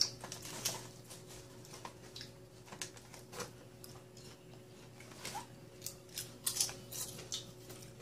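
Potato chips being crunched and chewed, with crinkling from a chip bag being handled: faint, scattered short crackles.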